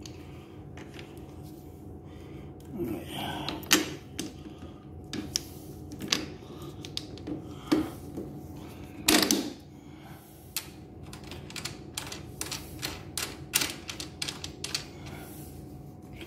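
Irregular clicks and knocks of a lawn mower's metal handle tubes and plastic handle brackets being handled and fitted together by hand, with a quick run of clicks in the second half.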